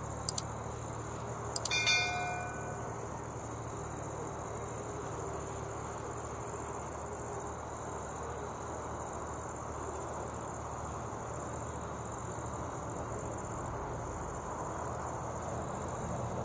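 Two mouse clicks and then a bell chime from a subscribe-button animation about two seconds in. After that comes a steady outdoor hum with a constant high-pitched whine, as the approaching Boeing 777 airliner's jet engines build slowly and grow a little louder near the end.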